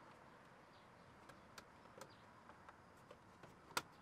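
Near silence with scattered faint ticks and one sharp click near the end: plastic interior pillar trim being handled and clipped into place.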